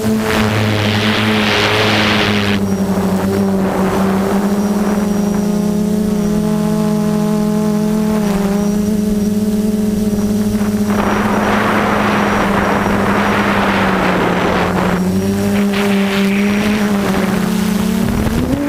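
Brushless motors and propellers of an F330 quadcopter whining steadily, heard from its onboard camera, the pitch drifting slightly with throttle. Loud rushing noise joins in about half a second in for two seconds, and again from about eleven to fifteen seconds.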